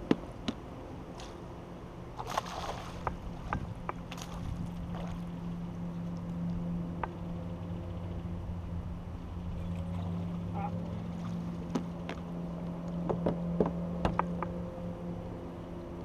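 Water splashing and scattered knocks and clicks around a kayak as a hooked fish is played on a spinning rod, with a louder splash about two seconds in. A steady low hum runs underneath.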